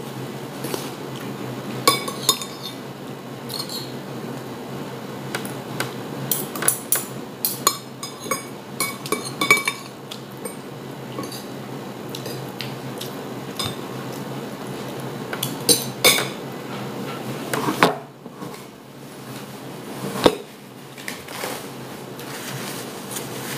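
A metal spoon and fork clink and scrape against a ceramic plate of fried rice as someone eats. The clicks come in irregular clusters over a steady low hum.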